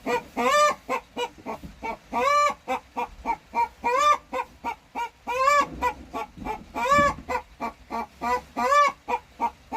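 A chicken hen clucking agitatedly: short rapid clucks with a drawn-out rising-and-falling call about every one and a half seconds, the hen complaining after being pushed off her roost.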